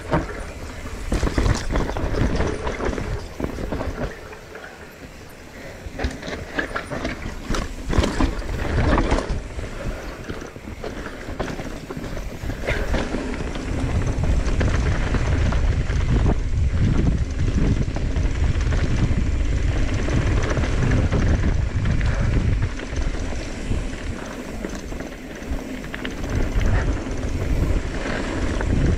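Mountain bike descending a trail: tyres on dirt and roots, with the chain and frame rattling and knocking over bumps. In the second half, wind buffets the microphone as the bike picks up speed.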